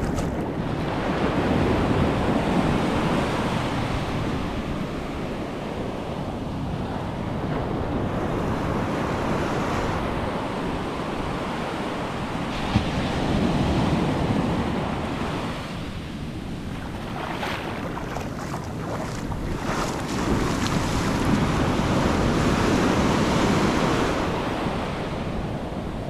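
Small ocean waves breaking and washing up over the sand at the water's edge, the surf noise swelling and fading in several surges.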